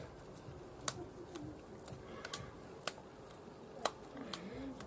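Wet hands patting and shaping minced meat into a cutlet, a few short smacks of the meat between the palms, with a pigeon cooing faintly near the start and again near the end.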